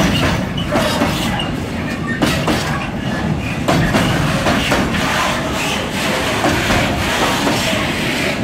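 Container-laden freight flat wagons rolling past, a continuous rumble of wheels on rail broken by repeated sharp clacks as the wheels cross rail joints.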